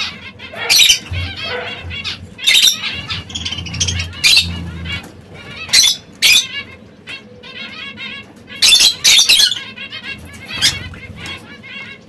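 Caged canaries calling: loud, sharp chirps every second or so over quick twittering.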